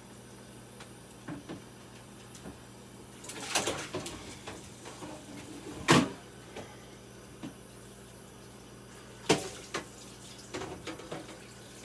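Irregular knocks and clatter of refrigerator shelves being handled and set back in place. The loudest knock comes about six seconds in, and another sharp one near the end.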